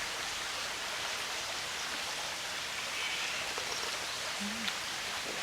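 Mountain valley stream rushing steadily, a constant even noise of flowing water.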